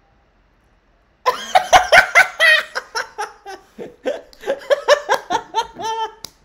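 Near silence for about a second, then a man laughing hard in quick repeated bursts.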